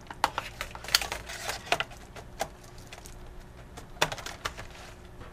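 Laptop keyboard being pressed and worked back into its seat in the chassis: irregular plastic clicks and key clatter, busiest about a second in and with a sharp click near four seconds.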